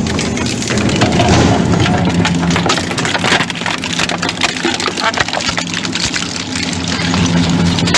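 Electric grinding machine running steadily with a motor hum, while hard pieces crackle and crunch as they are crushed inside it.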